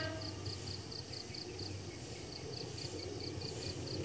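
An electric commuter train's horn cuts off at the very start, leaving an insect chirping in quick, even high-pitched pulses, about four a second with a short pause near the middle, over a low steady rumble.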